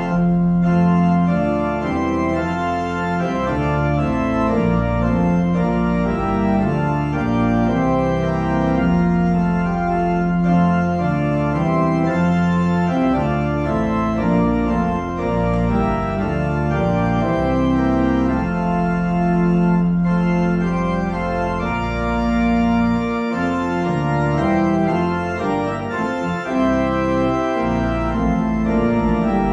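Church organ playing music in sustained chords that change every second or so, over long-held low notes.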